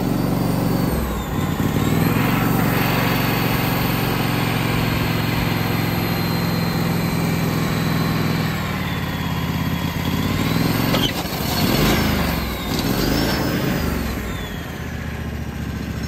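WoodMizer LT15 portable sawmill's gasoline engine running after a cold start in below-freezing weather. It runs steadily, its pitch wavers down and up a couple of times about two-thirds of the way through, and it settles a little quieter near the end.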